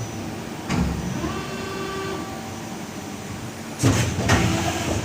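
LANSON plastic injection moulding machine running its bottle-cap cycle: a motor or pump whine that steps and glides in pitch, a sharp clunk less than a second in, and a louder clatter of mechanical knocks about four seconds in.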